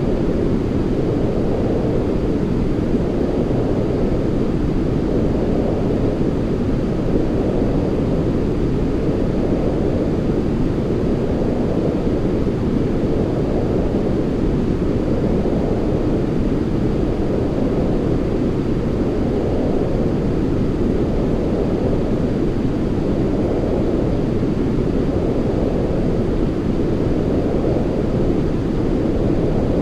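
Continuous sleep white noise, an even hiss weighted toward the low end, with a gentle swell about every two seconds.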